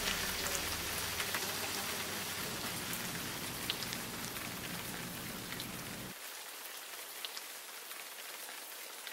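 Steady rain-like hiss and patter, full of small ticks, slowly fading; a low hum beneath it drops away about six seconds in.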